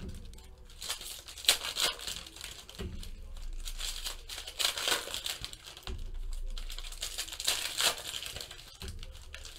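Foil wrappers of Panini Prizm baseball card packs crinkling and tearing as they are ripped open by hand, in irregular bursts of crackle.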